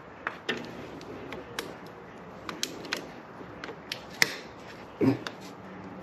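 Scattered light clicks and taps of tools and parts being handled while working under a motorcycle, with a short vocal sound about five seconds in.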